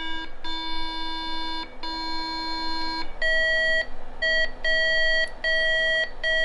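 IBM PS/2 Model 77 motherboard's speaker beeping out data bits from a custom debug BIOS. First come three long low beeps, then from about three seconds in a quick run of shorter, higher beeps. High beeps stand for ones, and a string of all ones is the pattern the board gave when it was broken.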